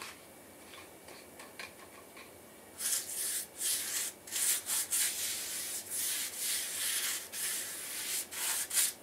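Paintbrush scrubbing liquid onto the rough concrete around a floor-drain opening. Repeated scratchy strokes start about three seconds in and go on in a quick, uneven rhythm.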